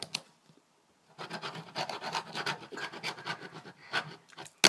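Tech Deck fingerboard being pushed and rolled across a surface under the fingers, a scratchy rubbing from about a second in, then one sharp snap near the end as the tail pops for an ollie.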